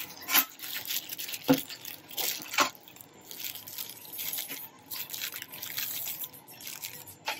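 Plastic postal mailer being slit with a long metal blade and pulled open by hand: crinkling, rustling plastic with a few sharp clicks and knocks in the first three seconds and another near the end.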